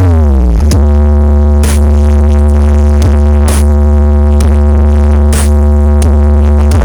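Electronic dance music blasted through a carnival sound system with eight subwoofers, its sub-bass pushed until it growls. A synth chord slides down in pitch in the first half-second, then holds over a heavy, steady bass, with a cymbal crash about every two seconds.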